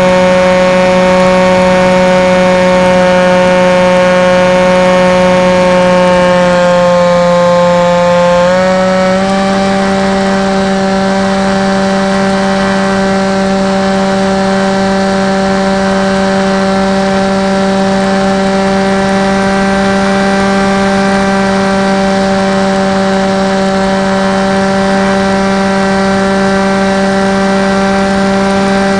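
Radio-controlled model aeroplane's motor and propeller heard from a camera on board in flight: a loud, steady drone with a rush of air. The pitch sags slightly, then steps up a little about eight seconds in and holds steady.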